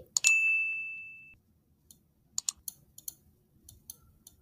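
A click and a high bell-like ding that rings and fades over about a second: the sound effect of an animated subscribe-button overlay. It is followed by scattered soft keyboard and mouse clicks.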